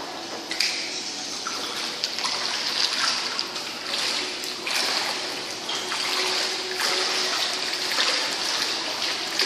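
Water splashing and sloshing continuously, with many small splashes, as a person swims.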